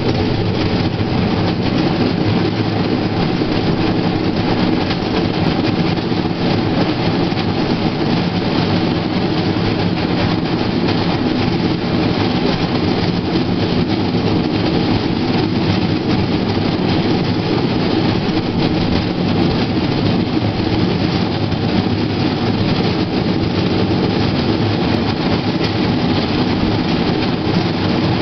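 Steel wheels of a Play-Team pedal rail bike rolling along old rails: a steady, loud rumble.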